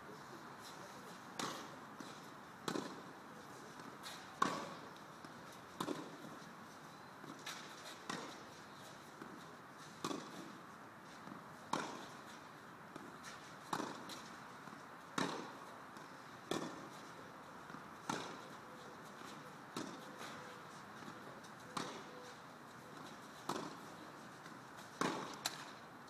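Tennis rally: rackets striking the ball back and forth, a sharp pock about every one and a half to two seconds, alternating louder and softer as the ball crosses between the near and far player.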